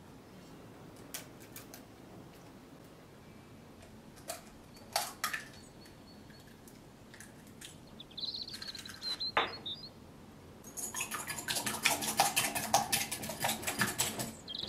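Wire hand whisk beating egg in a glass bowl: rapid clinking strokes against the glass, starting about eleven seconds in and forming the loudest part. Before it come a few light clicks and taps as the egg is cracked open.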